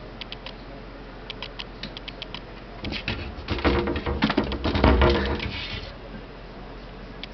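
A dog's claws clicking and pawing at a cabinet door. About three seconds in, a louder flurry of scratching and thumping against the door lasts roughly three seconds, then it settles back to light taps.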